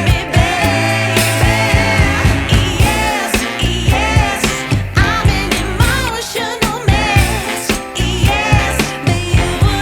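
Pop song with a singer over a steady beat.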